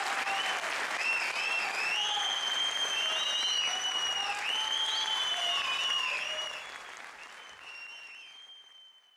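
Audience applauding, with long shrill whistles over the clapping; it fades away over the last three seconds.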